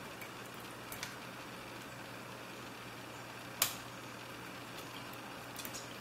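Faint metallic clicks of a lock pick working the pin stack inside a brass CISA padlock during single-pin picking, with one sharper click about three and a half seconds in, over a steady low hum.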